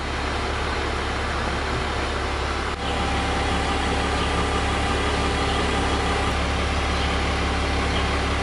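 Engine of a truck-mounted crane running steadily while the boom lowers a load, a constant low hum.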